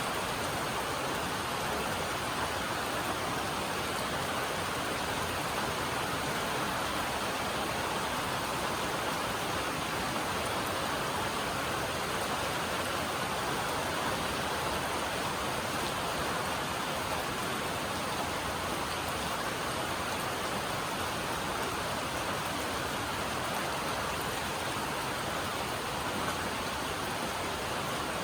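Heavy rain drumming steadily on a metal roof: a dense, even hiss with no single drops standing out.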